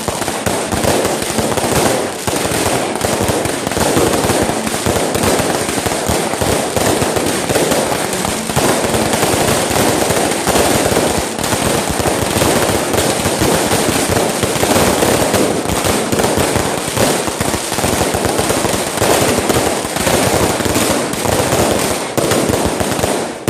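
Fireworks and firecrackers going off in a dense, continuous barrage of rapid bangs and crackling with no break.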